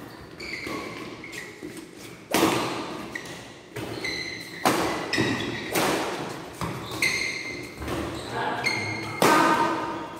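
Badminton rackets striking the shuttlecock during a doubles rally: sharp hits every one to two seconds, each echoing in a large hall, with short high squeaks between the hits.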